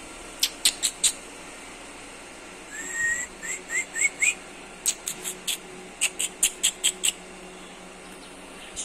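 A small songbird singing: a few sharp high chirps, then a short run of rising whistled notes and a quick series of high chirps, over a steady background hum.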